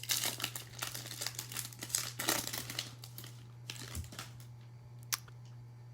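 A Topps Chrome baseball card pack's wrapper being torn open and crinkled, then a few lighter clicks as the cards are handled.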